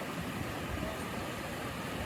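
Sea surf washing on the shore, a steady rushing noise with no distinct wave crash.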